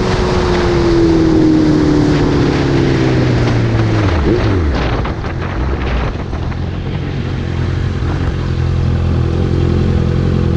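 Motorcycle engine heard from the rider's seat as the bike slows: its pitch falls steadily over the first four seconds or so, with wind rush, then it runs low and even at crawling speed.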